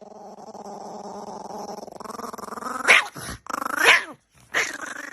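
A dog growling steadily, growing stronger, with two sharp, louder outbursts about three and four seconds in and a brief pause before the growl resumes near the end.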